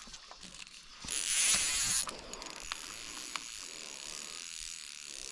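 Fly reel's click-and-pawl drag buzzing as a hooked carp runs and pulls line off the reel. It is loudest for about a second near the start, then keeps buzzing more quietly.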